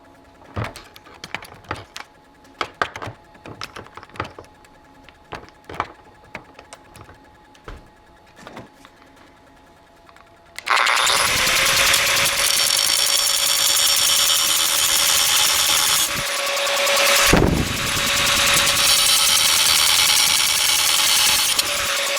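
Light clicks and knocks of metal parts being handled, then about halfway through a handheld power grinder starts and runs steadily with a high whine, grinding out a weld on the shifter lever. It eases off briefly a few seconds later and carries on.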